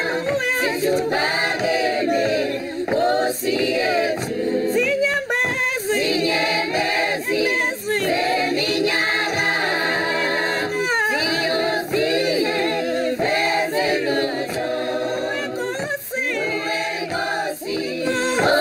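Choir singing a cappella, men's and women's voices together.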